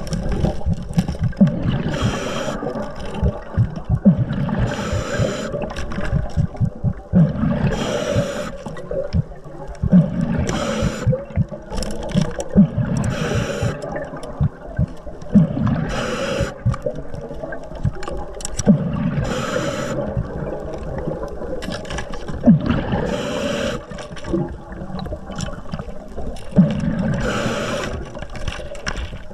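Underwater sound: a diver's exhaled bubbles gurgle in short bursts every two or three seconds over a low, steady rumble of water.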